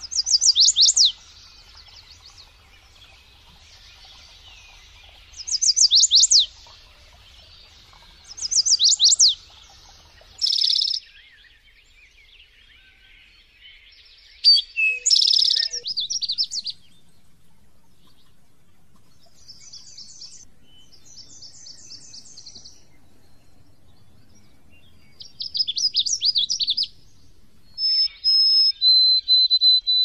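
Songbirds singing in turn, each song a short phrase of high, quick notes repeated every few seconds. The first phrases are runs of fast down-slurred notes, fitting the chestnut-sided warbler. Rapid twittering trills follow, and near the end come long, clear, steady whistled notes typical of a white-throated sparrow's song.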